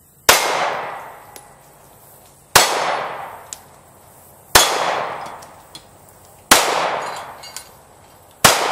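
Glock 19 Gen 4 9mm pistol fired five times in slow, single shots about two seconds apart, each shot followed by an echo that dies away over about a second.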